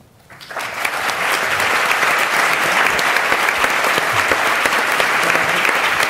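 Audience applauding, starting about half a second in and quickly building to a steady, full round of clapping.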